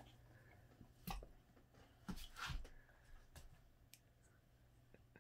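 Near silence: room tone with a low steady hum, broken by a few faint short clicks and scuffs.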